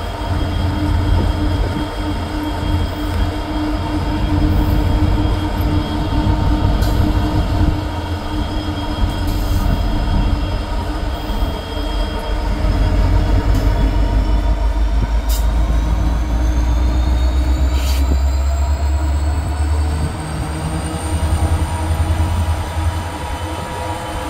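A BNSF SD70MAC diesel-electric locomotive running at speed close alongside, heard from a pacing car: a steady heavy engine rumble with wheel and rail noise. Over the second half a whine climbs slowly in pitch, and there are a couple of sharp clicks.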